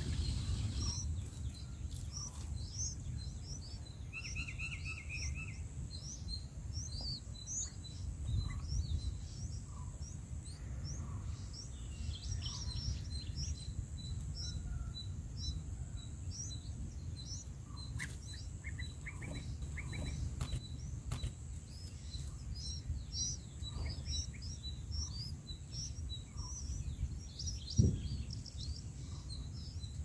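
Birds chirping: many short, high notes repeating throughout, with a couple of lower rapid call series, over a steady low outdoor rumble. A faint steady high tone runs through the middle, and a single thump near the end is the loudest moment.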